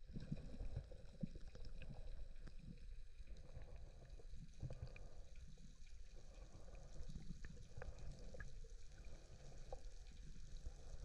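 Faint, muffled underwater sound heard through a waterproof camera housing: a low water rumble and sloshing with scattered small clicks.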